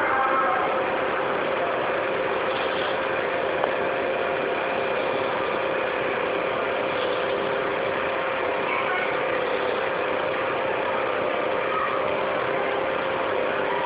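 Steady mechanical hum with hiss, a couple of faint steady tones running through it without change.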